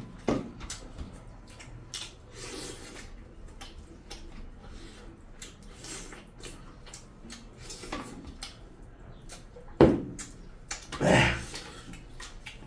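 Close-miked eating of curry and rice by hand: wet chewing and mouth smacks, with fingers working food on steel plates. A sharp click comes just before ten seconds and a short louder rush about a second later.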